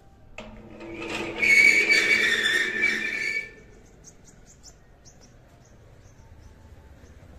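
A loud whistle-like tone that swells over about a second, holds for about two seconds and then stops, followed by faint short high chirps.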